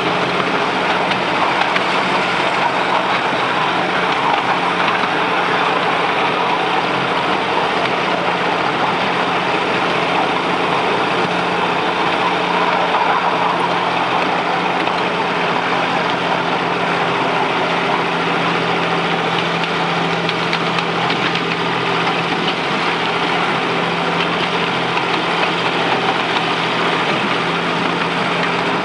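Engine of a 7¼-inch gauge miniature GP40 locomotive, no. 7443, running at a steady pitch as it pulls the train along the track, with the noise of the wheels rolling on the rails.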